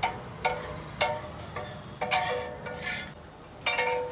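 Steel spatula scraping and striking a flat steel dosa griddle while gathering the masala filling: about half a dozen metallic scrapes and clinks, each leaving a short ringing tone.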